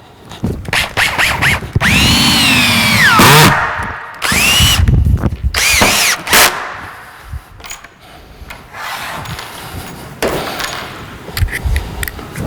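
Power drill driving wing-tipped self-drilling Tek screws through the bench-top board into a steel pallet-racking beam: three long runs, the motor's whine rising and then sagging under load, followed by quieter short bursts.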